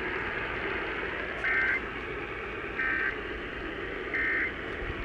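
Emergency Alert System end-of-message data code: three short, evenly spaced bursts of two-tone digital warble over a steady radio hiss, signalling that the alert has ended.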